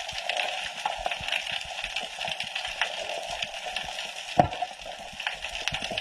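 Underwater ambience heard beneath the sea: a steady watery hiss dense with small crackling clicks. One sharper knock stands out about four and a half seconds in.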